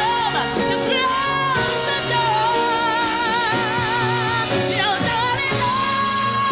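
Woman singing a soul-pop ballad with a live band: long notes with wide vibrato, a quick run about five seconds in, then a long held note near the end, over steady bass and chords.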